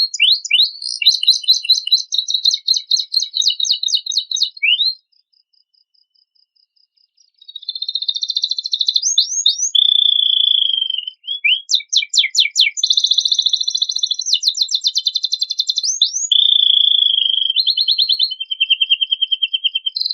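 Domestic canary singing a long, rich song of rapid trills, rolls and quick sweeping notes. It breaks off about five seconds in, falls silent for a couple of seconds, and then resumes with more fast trilled phrases.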